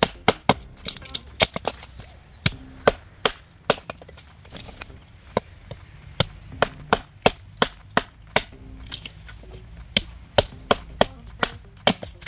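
A large knife chopping into wood to split it: a long run of sharp, irregular chops, often two or three a second, with a short pause near the middle.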